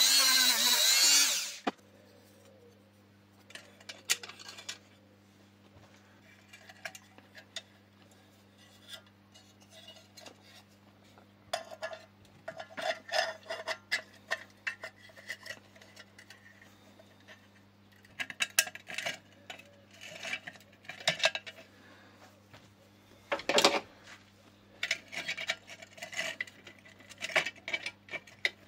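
A small power tool runs with a high whine and stops about a second and a half in. Then come scattered scraping and rubbing sounds of hand work on the hurricane lamp, over a steady low hum.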